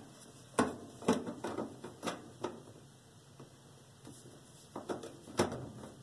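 Light knocks and clicks from hands working the sheet-metal lower access door of a gas furnace, a handful in the first couple of seconds and two more near the end, the last of them the loudest.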